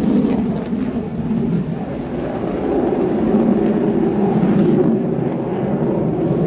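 Jet noise from a Panavia Tornado's twin turbofan engines, loud and steady as the jet climbs away after a low pass.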